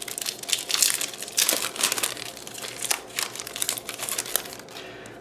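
Foil booster-pack wrapper crinkling and crackling in the hands as the trading cards are pulled out of it, an irregular run of crackles that dies down about four and a half seconds in.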